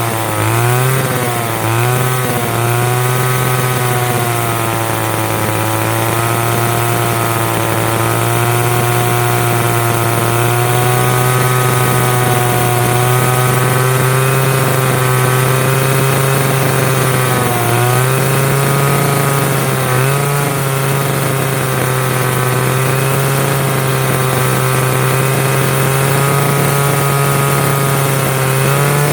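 Chainsaw running steadily under load while cutting firewood, its pitch sagging and recovering as the chain bites, with a few brief dips in engine speed.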